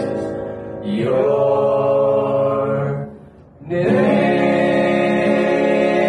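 Group of men singing a worship song together in harmony, holding long notes; they break off briefly about three seconds in, then come back in on a long held chord.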